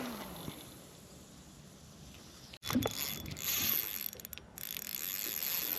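Fishing reel being wound, its gears turning with a light mechanical ratcheting, while a soft-plastic lure is retrieved. The sound breaks off sharply about two and a half seconds in and picks up again a little busier.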